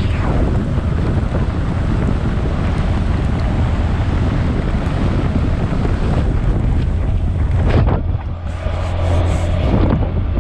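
Wind buffeting the microphone on a moving motorcycle, with the bike's engine running underneath. About eight seconds in the wind eases for a moment, then picks up again.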